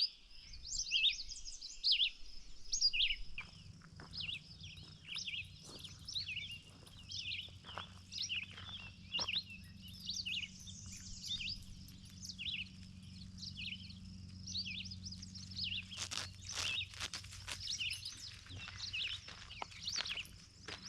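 Songbirds singing: a red-eyed vireo's short repeated phrases among other birds' chirps. A few sharp knocks about three-quarters of the way through.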